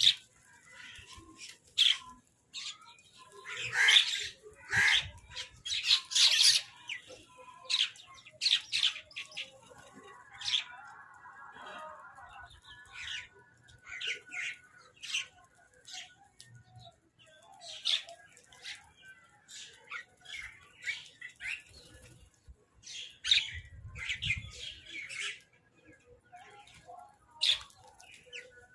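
Crows squawking in many short, harsh calls, one after another in irregular bursts, as crows do when squabbling over food.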